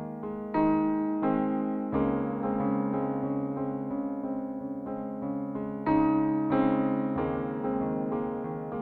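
Background music: a piano or electric piano playing slow, gentle notes and chords, each struck note fading away.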